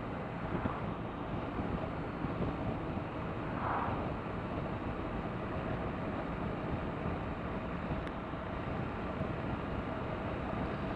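2017 BMW R1200RT boxer-twin motorcycle cruising at a steady road speed: a steady run of engine, wind and road noise.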